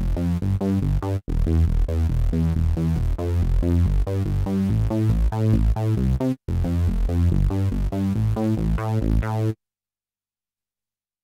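Reveal Sound Spire software synthesizer playing a factory bass preset: a fast, rhythmic sequence of short, deep bass notes that changes pitch, with two brief breaks. It cuts off suddenly about two seconds before the end.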